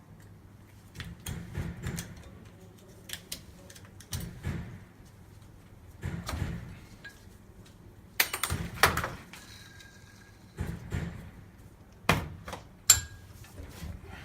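Irregular metallic knocks and clatters of an air-conditioning compressor and its clutch parts being handled and set down on a workbench, over a steady low hum.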